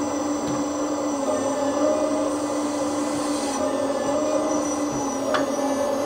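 Magom RC hydraulic excavator running: a steady hum from its hydraulic pump and Servonaut SMB sound-module engine sound, shifting slightly in pitch as the boom and bucket move. A brief falling chirp about five seconds in.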